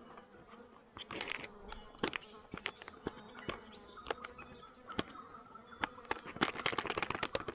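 Spoon stirring a rehydrating freeze-dried meal inside a foil-lined pouch: irregular crinkles and scrapes of the pouch, thickening into a quick run of crinkling near the end.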